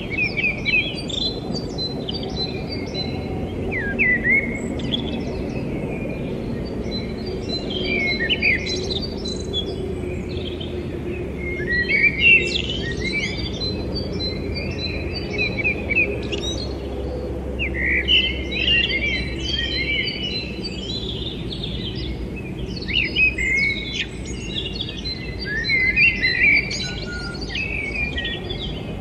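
Many small birds chirping and twittering in quick, overlapping calls, over a faint low steady hum.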